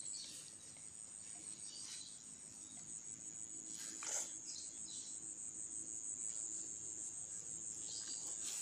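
Crickets trilling: a steady, high-pitched, finely pulsed trill, with a brief rustle about four seconds in.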